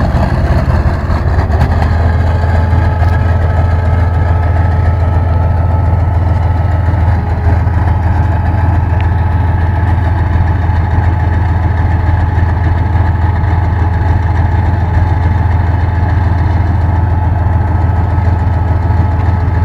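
Tank engine running steadily: a loud, unchanging low drone with a steady higher whine above it.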